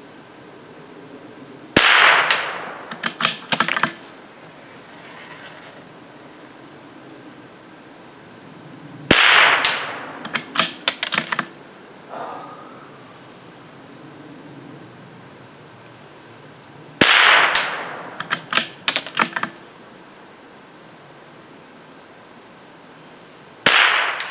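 Four shots from a CZ 455 .22 LR bolt-action rifle, spaced about seven to eight seconds apart. Each shot is followed by a quick run of sharp clicks as the bolt is worked. A steady high insect drone runs underneath.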